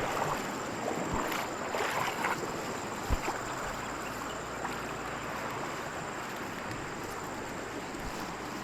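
Water of a waterfall rushing steadily, with a single brief thump about three seconds in.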